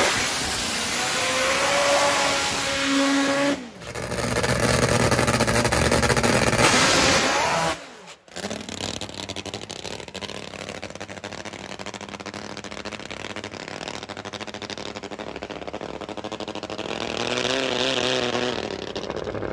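A nitro-burning Top Fuel drag motorcycle engine revving hard and pulling away, rising in pitch, with a brief dropout a few seconds in. It stops suddenly about eight seconds in, leaving quieter, steady engine and track noise that swells near the end.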